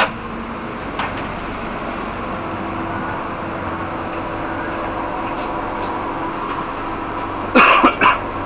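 Steady hum inside an economy railway passenger carriage, air conditioning and train noise, with a low steady drone that joins about two and a half seconds in. There are a couple of light knocks early on, and a short loud burst of about three quick pulses near the end.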